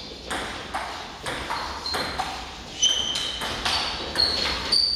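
Table tennis rally in doubles: a celluloid-type plastic ball is hit back and forth, giving sharp clicks of ball on rubber paddles and table about twice a second, with short high squeaks in between.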